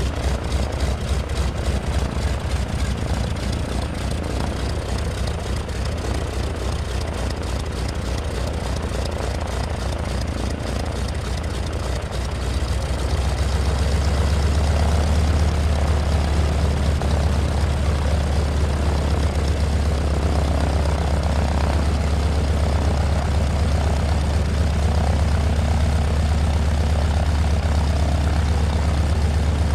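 Max Holste Broussard's nine-cylinder Pratt & Whitney R-985 radial engine and propeller running on the ground. It idles with a rapid, beating pulse, then about 12 seconds in picks up speed and runs louder and steadier.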